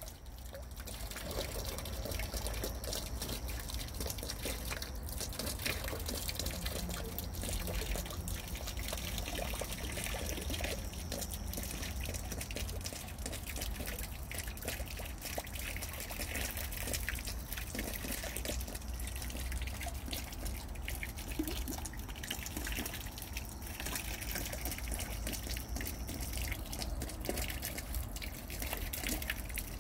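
Water at a pond's surface: small irregular clicks, drips and splashes, the sound of a carp sucking in floating feed pellets, over a low steady rumble.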